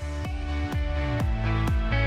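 Electronic dance music with a steady kick-drum beat, about two beats a second, over sustained synth notes.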